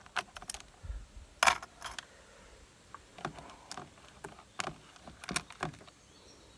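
Scattered sharp clicks and light clatter from hand work on a small plastic injector wiring connector and its wires, about a dozen irregular clicks, the loudest about one and a half seconds in.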